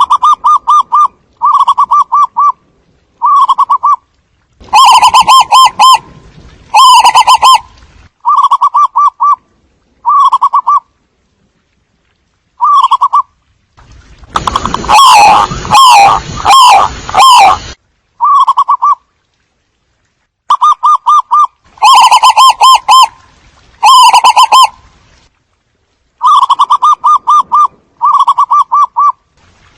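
Zebra dove (cu vằn) cooing in short, rapid staccato phrases, repeated with brief pauses. About halfway through, several calls overlap in a louder, denser stretch.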